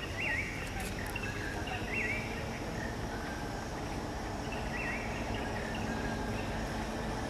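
Outdoor forest ambience: a steady low background rumble with a few short, high chirping calls that rise and fall in pitch, near the start, about two seconds in and again about five seconds in.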